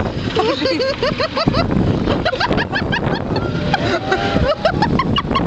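Several people laughing and shrieking in quick, broken bursts aboard a fast-spinning Scrambler amusement ride, over the ride's constant low rumble.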